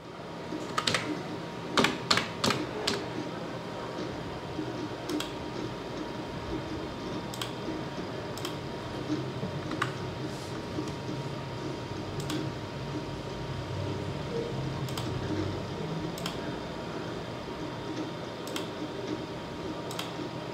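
Irregular single clicks at a desktop computer as a website is clicked through: a quick cluster in the first few seconds, then one every second or two. Underneath runs a steady low hum of room or computer noise with a thin steady tone.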